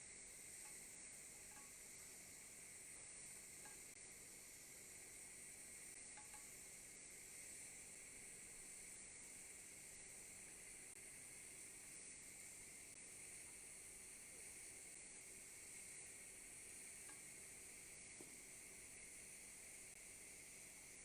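Faint, steady hiss of a TIG welding arc running a root pass on duplex stainless steel pipe.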